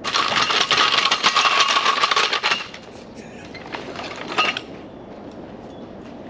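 Metal hand tools clicking and rattling in quick succession for about two and a half seconds, then a shorter burst of ringing metal clicks at about four and a half seconds, as a long-handled lug wrench is worked on the ATV's wheel nuts.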